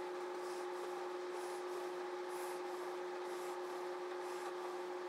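Quiet steady hum, with faint soft rubbing of fingers working thin braided fishing line into a knot.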